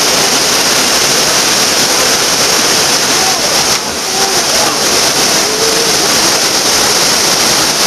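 Loud, steady roar of whitewater pouring down a steep rocky waterfall, with faint shouts from onlookers.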